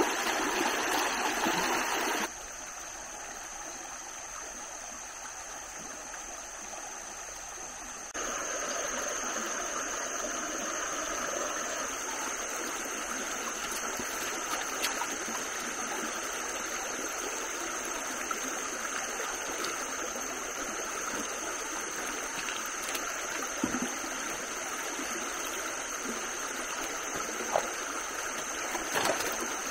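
Shallow, rocky stream running over stones: a steady rush of water. It drops quieter about two seconds in and comes back louder a few seconds later, with a few faint clicks near the end.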